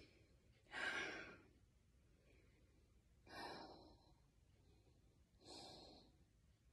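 A woman's heavy, sighing exhalations, three of them about two seconds apart, the first the loudest: strained breathing from holding a forearm plank.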